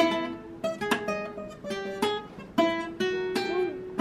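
Acoustic guitar plucked one note at a time, a new note about every half second, each left to ring and fade: a beginner picking down the strings one by one.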